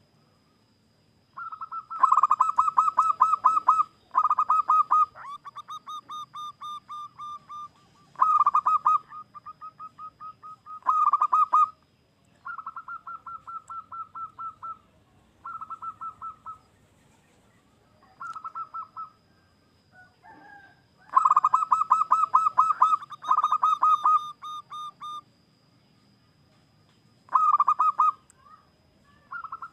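Zebra dove (perkutut) singing: phrase after phrase of rapid, pulsed cooing notes, each phrase lasting one to four seconds, with short pauses between them.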